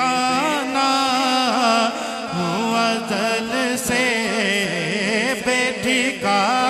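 A man's voice singing an Urdu naat into a microphone, drawing the line out in long, ornamented notes that bend up and down, over a steady low drone.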